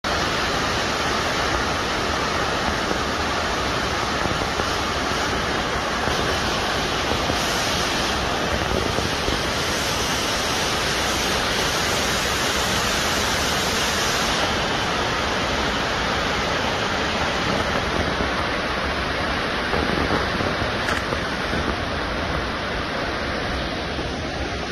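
Fukuroda Falls, a large tiered waterfall, pouring with a steady rush of falling water. The hiss grows brighter for several seconds in the middle.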